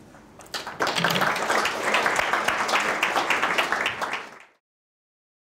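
Audience applauding, starting about half a second in and fading out quickly about four and a half seconds in.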